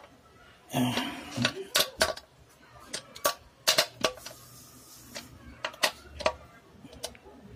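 Irregular sharp metallic clicks and clinks of a hand tool and screws on the scooter's metal crankcase cover as its screws are fastened.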